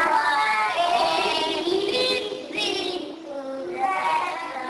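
Young children singing, with a short break in the tune about three seconds in.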